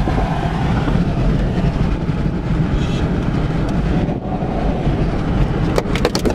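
Road and engine noise inside a moving car: a steady low rumble, with a few short sharp clicks near the end.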